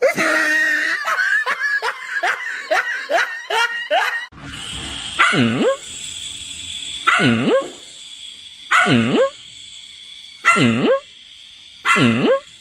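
A dog yipping in a quick run of short calls. About four seconds in, this gives way to a series of evenly spaced calls, each swooping down in pitch and back up.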